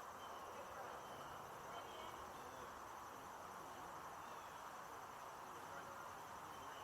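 Small brook babbling steadily over stones, an even rush of water.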